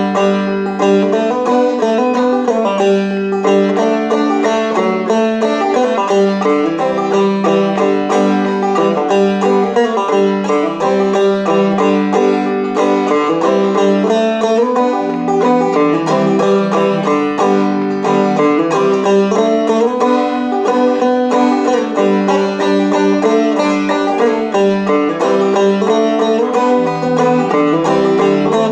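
Five-string banjo played clawhammer style in open G tuning: a steady, unbroken run of plucked melody notes and down-stroked brushes, with no singing.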